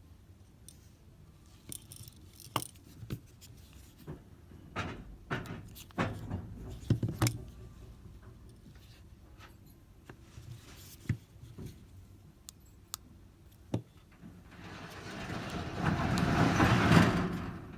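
Scattered clicks and rattles of a car flip key with a built-in alarm remote being handled. Near the end a rush of noise swells up over about three seconds and then falls away.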